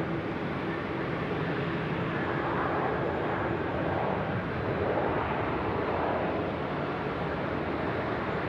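Jet airliner engines, a steady rushing noise that swells a little in the middle, as a Qantas Boeing 737-800 comes in to land.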